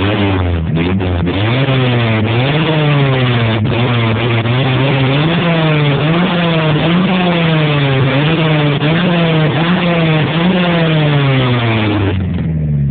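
Chevrolet Corsa 1.0 four-cylinder engine revved over and over through a noisy exhaust, the pitch climbing and falling about once a second. The revving eases off near the end.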